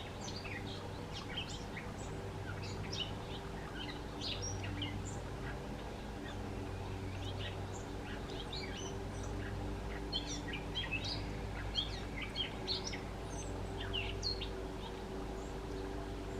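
Birds chirping outdoors: many short, high chirps and calls scattered throughout, over a steady low hum.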